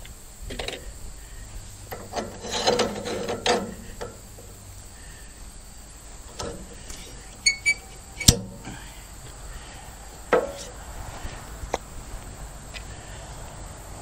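Scattered metal clicks, knocks and scraping as the log clamp and log stops of a Woodland Mills HM126 sawmill are worked by hand to hold the log. The scraping runs about two to four seconds in, with a sharp click a little after eight seconds and a knock at about ten.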